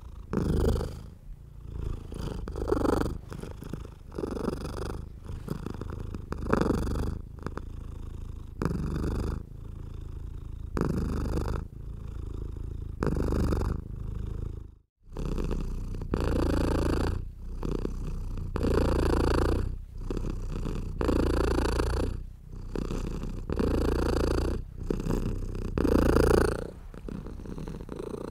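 Domestic cat purring close to the microphone, a low rumble that swells and fades with each breath, about every two seconds. The purring breaks off for an instant about halfway through.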